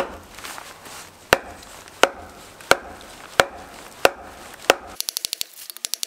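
Wooden baton striking the spine of a CRKT Seismic folding knife to drive it through a very hard oak log: seven sharp whacks about two-thirds of a second apart. Near the end, a rapid run of sharp clicks, about ten a second.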